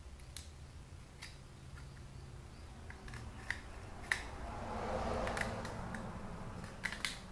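Scattered sharp clicks and ticks from hand work on a speaker's plastic housing and screw, with a scraping noise that swells in the middle and fades near the end.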